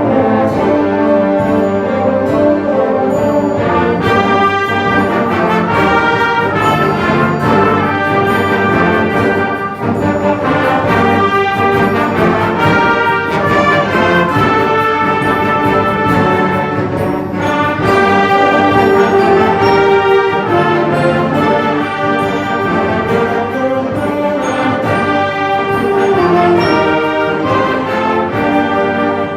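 A wind band playing a full-ensemble piece: brass and other winds holding and moving through loud chords, with sharp percussion strikes from about four seconds in.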